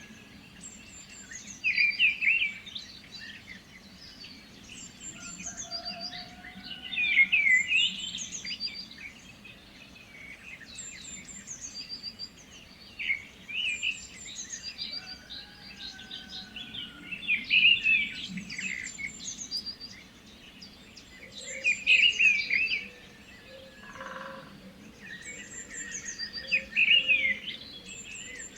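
Several birds singing and chirping together, with one bird repeating a loud, quick song phrase about every five seconds amid higher, thinner chirps from others.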